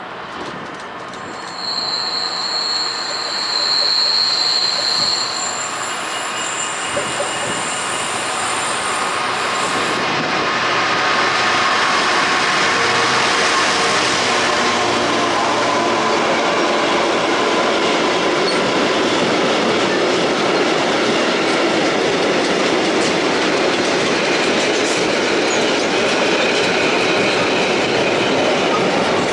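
EWS Class 66 diesel locomotive 66161 approaching and passing, its two-stroke V12 engine growing loud, then a long train of box wagons rolling by on the rails with a steady roar. A brief high steady tone sounds about two seconds in as the train nears.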